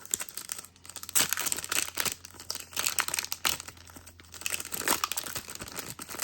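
Trading cards and their plastic and foil packaging being handled, crinkling and rustling in irregular spells, loudest about a second in, around three seconds and near five seconds.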